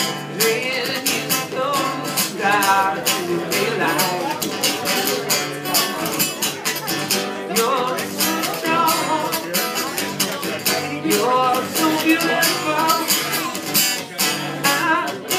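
Acoustic guitar strummed steadily in live solo performance, with a voice singing a wavering melody over it.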